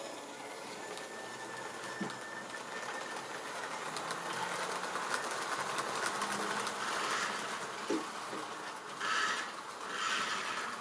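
Model railway diesel locomotive and coaches running past on the track: the small electric motor whirring and the wheels clicking over the rail joints, growing louder as the train comes close, with a thin steady whine, a couple of light knocks and two short louder rushes near the end.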